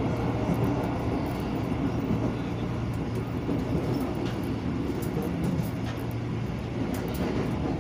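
Jakarta KRL Commuter Line electric train running along the track, heard from inside the carriage: a steady rumble with a constant low hum and a few faint ticks.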